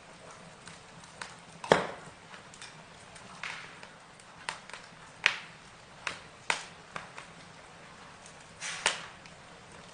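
Burning wood crackling, with irregular sharp pops and snaps over a soft hiss; the loudest snaps come about two seconds in and again near the end.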